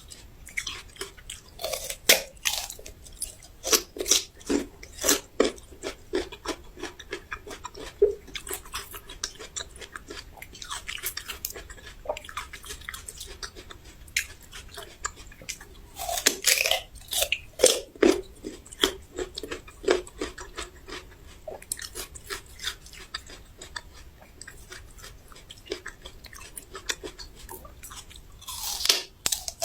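Raw ginger being bitten and chewed: irregular crunching throughout, with louder clusters of bites every several seconds.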